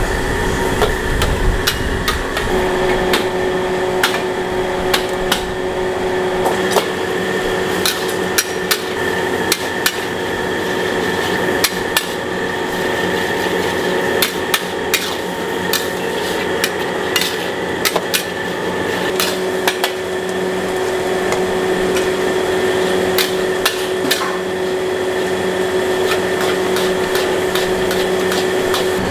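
A metal spatula striking a wok during stir-frying of noodles: many sharp, irregular metallic clanks over a steady hum.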